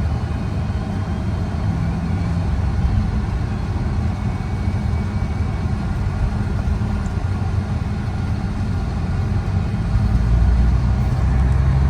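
Cabin sound of a 1983 Mercedes-Benz 300CD Turbo under way: the 3.0-litre turbodiesel inline-five running steadily, mixed with road noise. The low rumble grows louder about ten seconds in.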